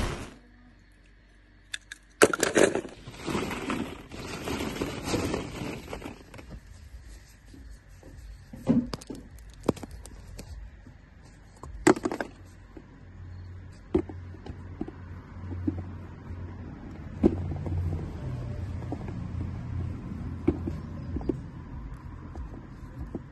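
Close-up hand-handling sounds: scattered sharp clicks and taps of small plastic and die-cast toys, with scraping and crumbling as a kinetic sand egg is broken open to free a die-cast toy car. The scraping is heaviest a few seconds in.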